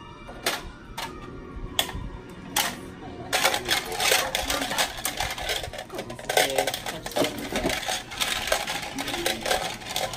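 Small plastic hair accessories rattling and clicking against each other and against clear plastic bins as they are handled and sorted, with knocks of bottles and jars set down on a metal wire cart shelf. The clicks are scattered at first and become a dense, busy clatter about three seconds in.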